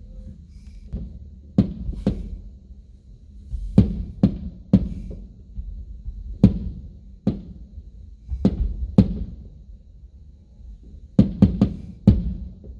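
Aerial firework shells bursting in an irregular series of booms, each followed by a low rumble, with a quick cluster of four near the end.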